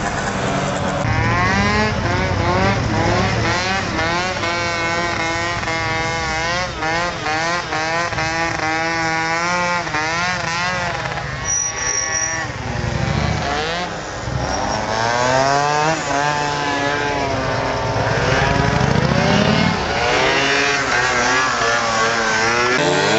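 Motor scooter engine revving hard and repeatedly, its pitch swinging up and down every second or so, with a short lull about two-thirds of the way through before the revving resumes.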